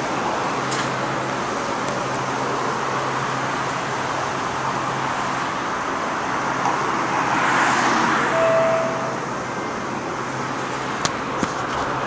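Light rail train running, heard from inside the car: a steady rumble and hiss of wheels on track with a low hum underneath. The noise swells about seven seconds in, with a short tone just after and a few sharp clicks near the end.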